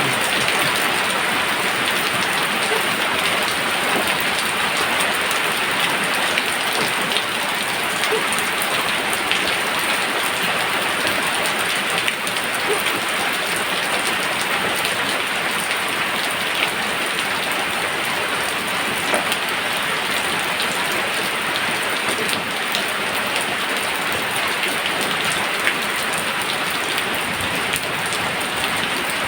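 Steady rain falling, an even hiss with scattered individual drop taps throughout.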